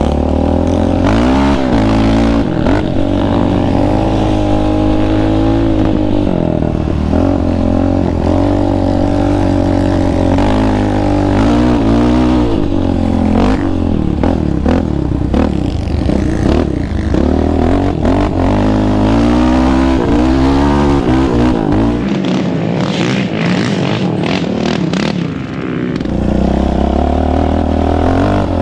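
Yamaha Raptor 700R quad's single-cylinder four-stroke engine, fitted with an aftermarket Monster exhaust, revving up and down over and over as it is ridden through sand. It eases off for a few seconds near the end, then picks up again.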